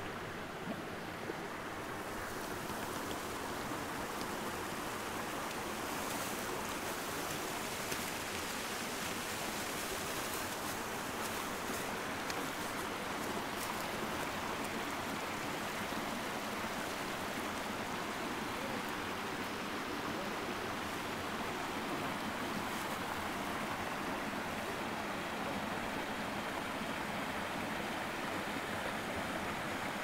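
Steady rushing of a mountain creek as its water cascades over granite boulders.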